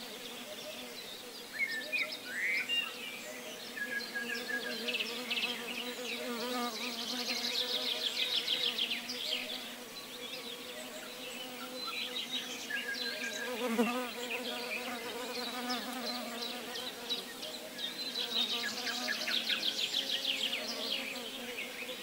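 Flying insects buzzing: a steady low hum that swells and bends in pitch about two-thirds of the way in, as one passes close. High chirps and fast trills sound above it.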